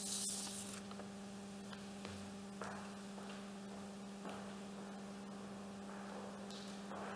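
Steady electrical hum, with a few faint soft footsteps and rustles in a reverberant church.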